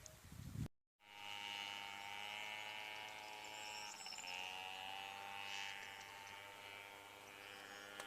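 A brief low rumble, then a sudden cut to silence, followed by a steady motor hum with many overtones whose pitch wavers slightly and dips about four seconds in.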